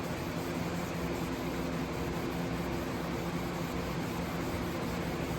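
Steady hiss with a low, even machine hum, like a fan or air conditioner running.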